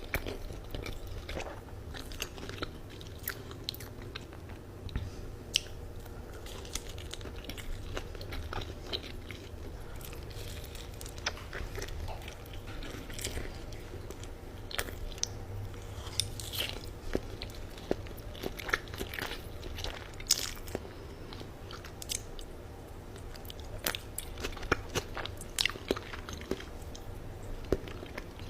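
Close-up chewing and mouth sounds of a person eating spicy Buldak ramen noodles and dumplings: a steady run of small sharp wet clicks over a faint steady hum.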